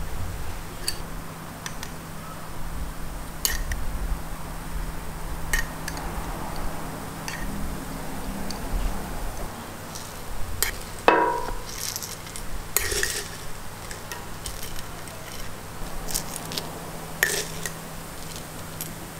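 Scattered clinks and taps of metal tongs and a spoon against a crepe griddle and glass topping jars, with one louder ringing clink about eleven seconds in, over a steady low hum.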